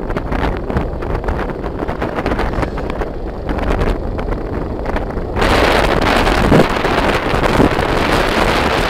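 Wind buffeting the microphone of a phone carried on a moving motorbike, with low road and engine rumble beneath. The wind gets louder and harsher about five and a half seconds in.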